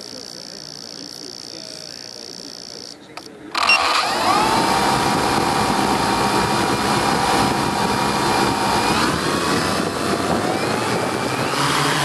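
Electric motors of a hexacopter spinning up suddenly about three and a half seconds in, then running with a steady whine of several tones, heard close up from on board. The pitch rises twice near the end as the throttle goes up and the craft lifts off the lawn.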